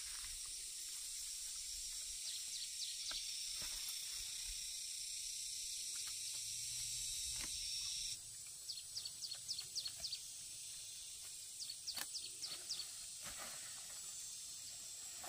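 Steady high-pitched insect drone in the undergrowth, with a bird giving quick runs of short high chirps in the second half. Occasional light snaps and rustles come from plant stalks being handled.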